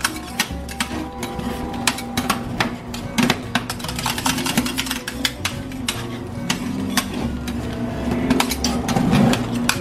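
Metal spatulas chopping and scraping on a steel cold plate, fast irregular clacks as strawberries are mashed into rolled ice cream base. Background music with a steady bass line runs underneath.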